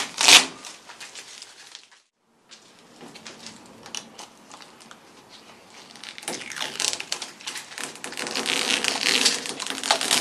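Old duct tape being peeled and torn off the rusted metal roof gutter of a VW T2 bus, crackling and crinkling, with a sharp crackle just after the start. The audio drops out briefly about two seconds in, and the crinkling grows louder and denser over the last few seconds.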